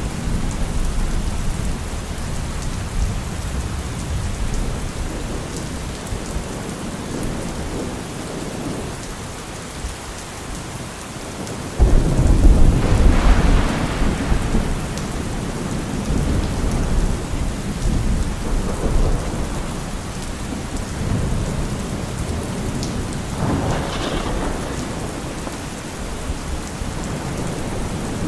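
Heavy rain falling steadily, with a sudden loud clap of thunder a little before halfway that rumbles deep for a few seconds, and a softer rumble of thunder near the end.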